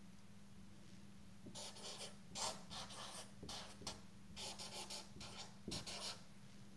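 Dry-erase marker writing on a whiteboard: a string of short strokes from about a second and a half in until about six seconds in, over a faint steady hum.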